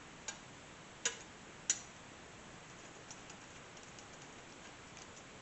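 Metal parts of a desktop PC case being handled: three sharp clicks in the first two seconds, then a few faint light ticks.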